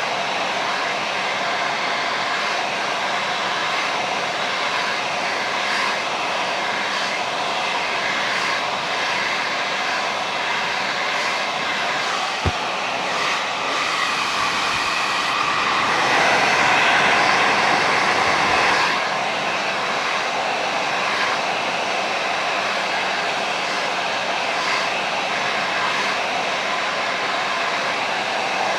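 Handheld hair dryer blowing steadily. A little past halfway it grows louder and brighter for about three seconds, then settles back, with one sharp click shortly before that.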